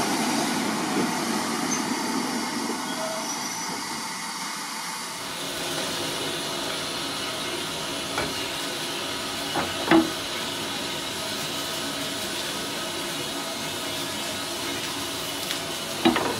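Ivatt Class 2MT steam locomotive hissing steadily on the footplate, with a few sharp metallic clanks, the loudest about ten seconds in and another near the end.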